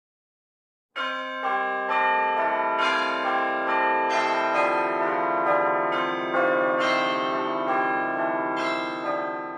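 Outro music of ringing bells: a melody of struck notes about every half second, each ringing on under the next, starting about a second in after silence and fading slightly near the end.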